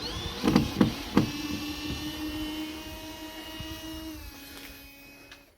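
Cordless drill's electric motor running with a steady whine, its pitch dipping slightly about four seconds in before it fades out. A few sharp knocks sound in the first second and a half.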